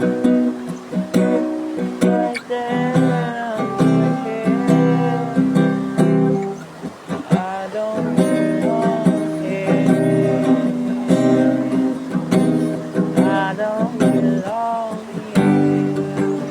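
Acoustic guitar strummed in a steady rhythm, with a wordless voice singing over it, its pitch sliding up and down.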